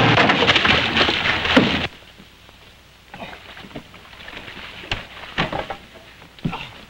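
A motorboat crashing ashore: loud clattering noise as the outboard-powered boat runs aground, cutting off abruptly about two seconds in. Quieter scattered knocks and thumps follow.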